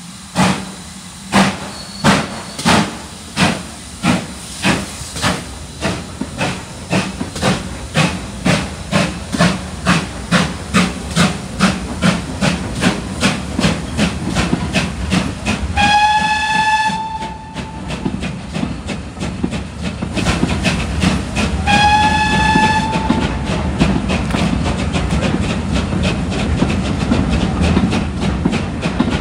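Steam locomotive pulling a train away. Its exhaust beats are sharp and evenly spaced, quickening steadily over about fifteen seconds. Then come two short whistle blasts about six seconds apart, and the train runs on with a steady running noise.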